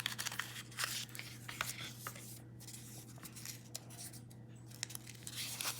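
Paper and cardboard packaging being handled: faint rustling with scattered small clicks as a small product box and its folded instruction leaflet are opened, over a steady low hum.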